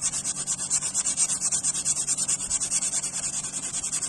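Sanding block with sandpaper rubbed quickly back and forth by hand over hardened body filler on an aluminium alloy wheel rim, an even rasping with several strokes a second, smoothing the filled scratches flush.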